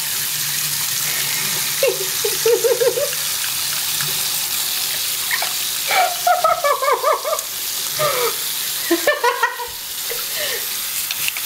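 Water running steadily from a bathroom tap into a sink while hands lather a piece of shower jelly under it. A person's voice breaks in three short times.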